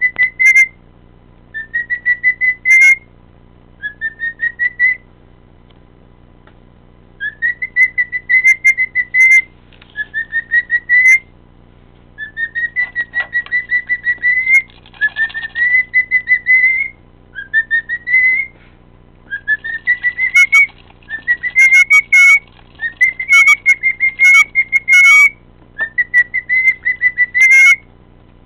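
Cockatiel whistling phrase after phrase, each a run of short rising notes, with pauses of a second or two between phrases and sharp clicks among the notes.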